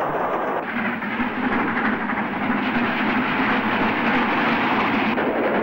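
Great Western 4-6-0 steam locomotive passing at speed with a passenger train: a dense rush of exhaust and running noise with wheel clatter on the rails. The sound changes abruptly about half a second in and again near the end.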